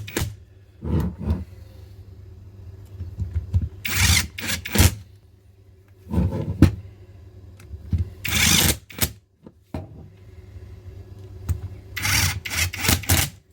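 Intermittent handling noises on a workbench as the plastic housing and internal parts of a copy SDS rotary hammer are moved and taken apart: about five short scraping, clattering bursts, over a faint steady low hum.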